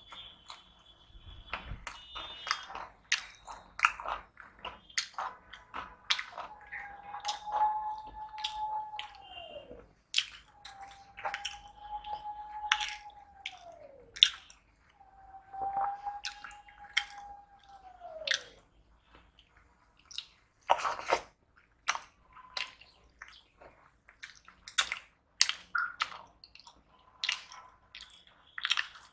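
Close-miked eating: a cucumber slice crunched between the teeth, then wet chewing and biting of food, heard as a fast run of crisp clicks. Three long steady tones, each sliding down in pitch at its end, sound behind it in the middle.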